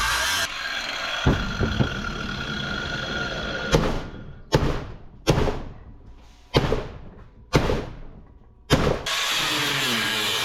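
A power cutter with a cutting disc runs on aluminum scrap and stops about half a second in. After a couple of knocks come six sharp bangs, each trailing off over about half a second, and the cutting noise starts up again near the end.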